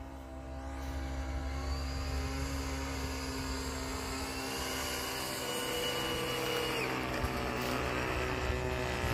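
Hanger 9 Cirrus RC airplane's motor and propeller droning steadily as it flies overhead, swelling over the first second, with the pitch of one whine sliding down about seven seconds in as it passes.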